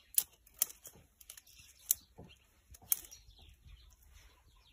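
Plant stalks snapping and crackling as a bundle is gathered and twisted by hand: several sharp cracks, four of them loud within the first three seconds, with a light rustle of stems and leaves between them.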